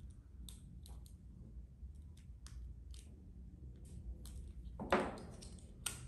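Faint, scattered small clicks and scrapes of a small screwdriver and the plastic case of an RC servo as its bottom cover is unscrewed and taken off, with a brief, louder rustle about five seconds in.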